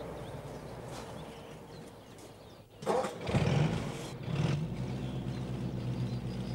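A car engine starts up about three seconds in and keeps running, swelling briefly a couple of times.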